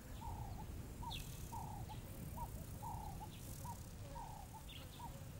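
A bird calling over and over: a longer note followed by short rising notes, the phrase repeating a little more than once a second. Fainter high chirps and a low rumble run underneath.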